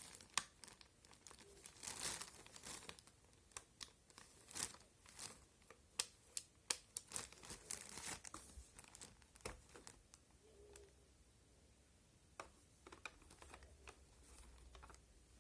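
Packaging being handled: crinkling and rustling with scattered sharp clicks and taps, thinning out after about ten seconds.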